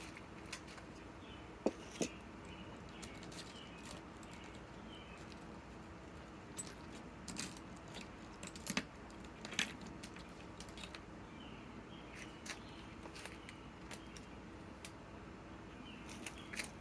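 Small metal parts clinking and clicking now and then as they are handled, a driver bit being fetched and fitted, faint throughout over a low steady hum.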